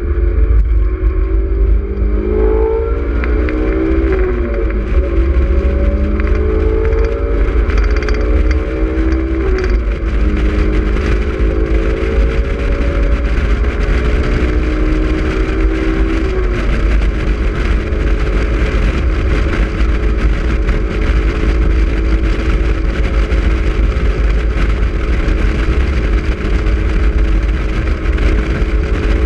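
Honda S2000's four-cylinder engine at track speed, heard from inside the open cockpit. It climbs in pitch through a few upshifts in the first ten seconds or so, then holds a steady note. Heavy wind rumble on the microphone runs underneath.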